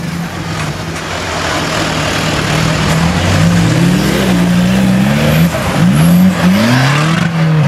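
Suzuki Samurai off-road special's engine revving hard and unevenly as it is driven through a dirt section, with several quick rev rises and drops in the second half, over a broad rushing noise.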